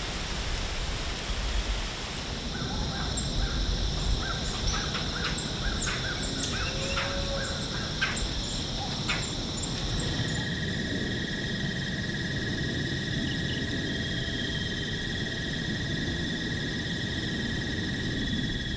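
Field-edge ambience: an American crow cawing repeatedly in the first half, over a low rumble and steady high-pitched drones.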